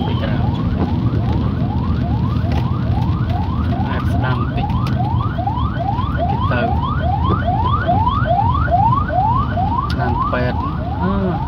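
An electronic siren yelping: a quick rising whoop, repeating about three times a second, over the low rumble of car and traffic noise on a wet road.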